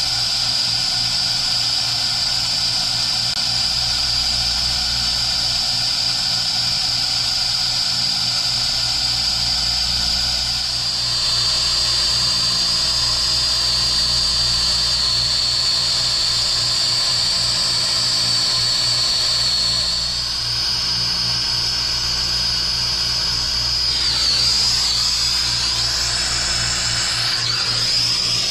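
Acetylene brazing torch burning with a steady hiss and a high whistle while a copper refrigeration joint is brazed; the whistle dips in pitch and comes back up twice near the end. A low pulsing hum runs underneath.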